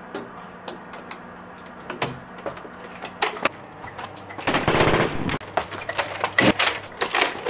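Dubbed sound effect of automatic rifle fire, a recorded M16 firing, in rapid bursts that start about halfway through, after a few scattered clicks.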